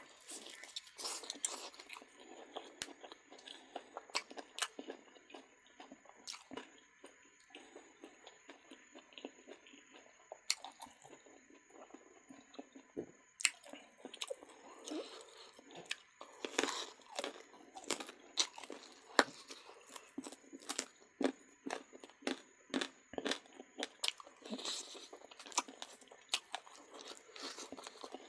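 A person chewing and biting into duck meat up close, with many irregular short clicks and mouth sounds and no steady rhythm.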